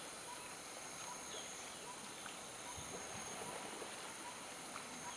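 Steady ambience of a forest clearing: a continuous high-pitched drone over a soft hiss, with a short note repeating a little more than once a second.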